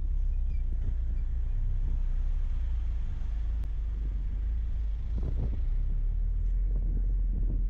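Steady low rumble of a moving road vehicle on a paved highway.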